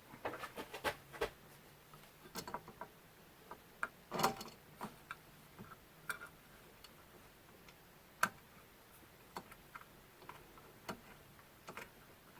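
Scattered faint clicks and taps of a small metal screw and tool being worked blind into a mounting hole, with a sharper tap about four seconds in and another about eight seconds in.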